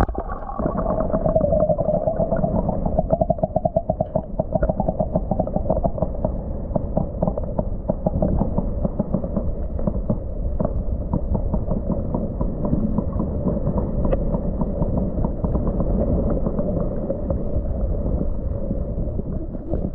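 Muffled underwater noise picked up through an action camera's waterproof housing held below the surface: a dull, steady rumble of moving water with many small clicks and knocks, and no high sounds at all.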